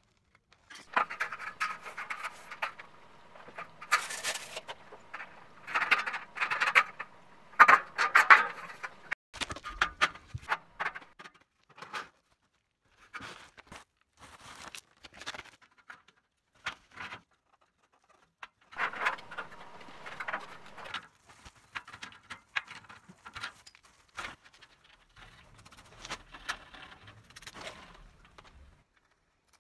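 Intermittent handling sounds of measuring and marking out a metal drywall track: scraping and rustling against the foil-faced insulation and metal profile, with sharp clicks, in several short bursts separated by brief quiet gaps.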